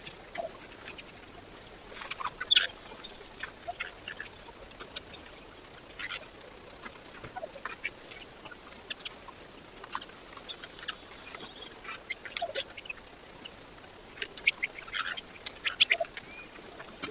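Birds at a feeder: scattered short chirps and sharp clicks at irregular intervals, with one brief high note about two-thirds of the way through, over a faint steady hiss.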